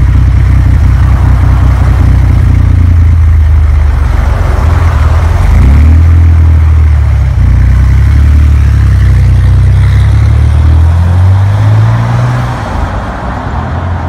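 A 1961 Chevrolet Corvair wagon's air-cooled flat-six engine, a 1963 replacement, runs loud and low. It revs up about five seconds in and again near the end as the car pulls away, then fades.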